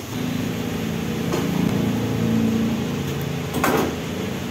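A low, steady machine hum of several held tones. About three and a half seconds in comes a short crunchy burst as a bite is taken out of crispy fried chicken.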